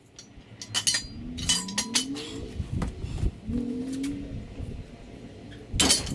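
Clicks and clinks of metal parts on a car's front end, with two rising squeaky creaks a couple of seconds apart and a louder knock near the end.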